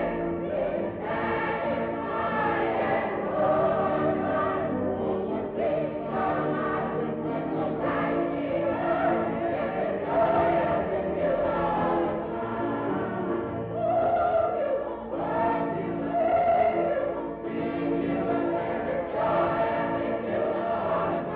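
Choir singing with long held chords.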